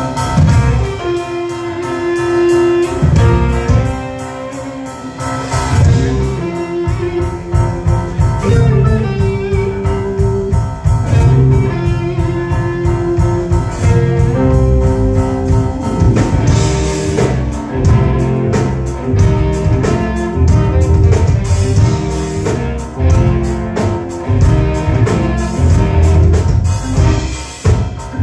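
Rock band playing live: electric guitar, bass guitar, drum kit and keyboards.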